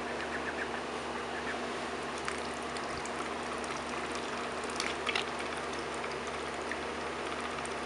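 A duckling dabbling its bill in a bowl of water: small scattered splashes and wet clicks, a cluster of them about five seconds in, over a steady background hiss with a faint low hum.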